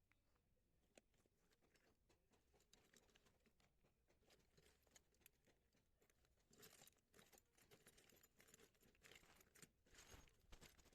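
Near silence, with faint scattered clicks and rustling that grow busier over the second half.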